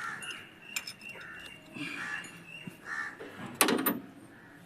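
Metal parts and hand tools clinking during work on an engine's alternator mounting, with a louder metallic clatter about three and a half seconds in.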